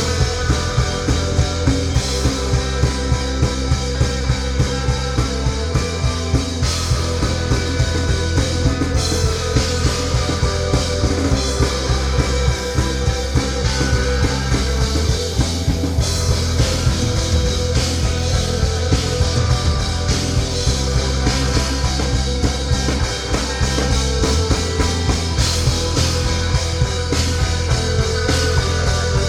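Rock band playing live, with a drum kit keeping a steady beat under bass and full band sound.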